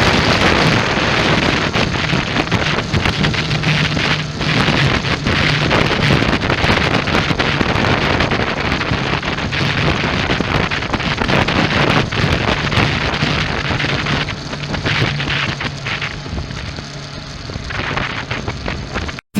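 Heavy wind buffeting on the microphone of a moving motorcycle, with a low, steady engine drone underneath; it cuts off abruptly near the end.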